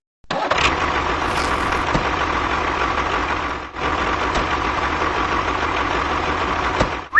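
An engine running steadily with an even, rumbling noise and a faint steady whine, breaking off briefly about halfway through and stopping just before the end.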